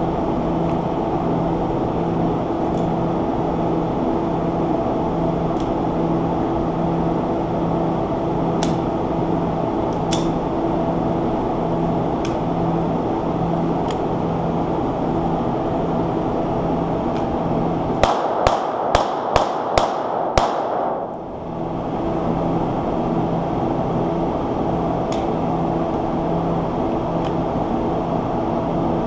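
A quick string of about seven sharp pistol shots over two seconds, about two-thirds of the way in, heard over a steady droning hum like a ventilation fan.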